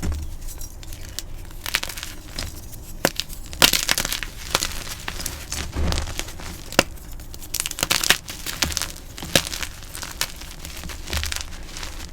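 Blocks of dyed gym chalk being crushed, giving irregular crisp crunches and crackles with a few soft dull thuds among them.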